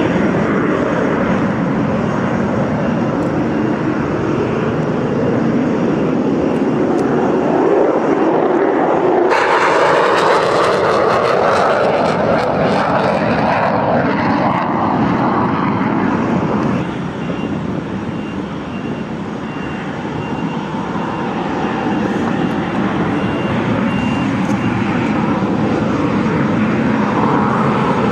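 F-16 fighter jet engines running on the flightline: a steady, loud jet noise that changes in tone about a third of the way in and dips slightly past the middle.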